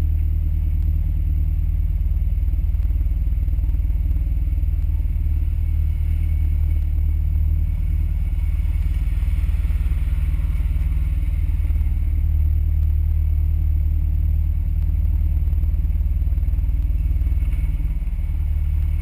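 Off-road 4x4's engine idling with a steady low rumble, the vehicles waiting their turn on the trail.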